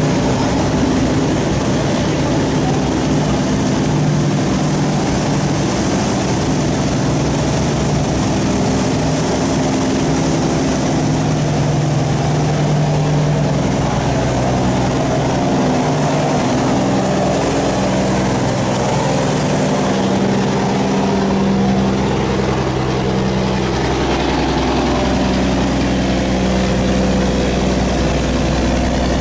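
Diesel engine of a loaded sand barge running as the barge passes close by, its pitch shifting now and then, over the churn of its propeller wash. A deeper low hum grows in about two-thirds of the way through.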